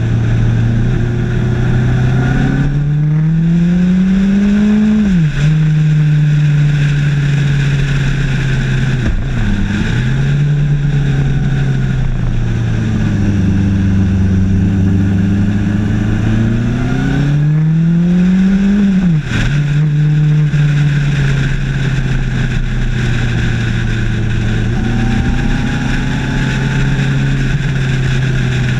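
Suzuki GSX1250FA's inline-four engine running at speed with wind rushing past. The engine note climbs twice in long rises, each ending in a sudden drop, and between them it sags and swells with the throttle.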